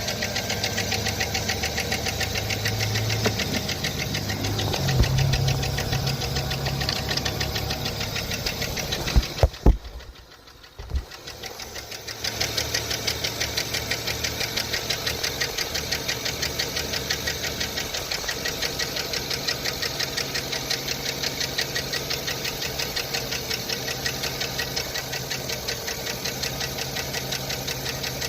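Chevy Silverado 5.3-litre V8 idling with a fast, even lifter tick, the sign of worn or collapsing hydraulic lifters in a high-mileage engine. About nine seconds in there are a few sharp knocks, and the sound drops away briefly before the idle and ticking come back.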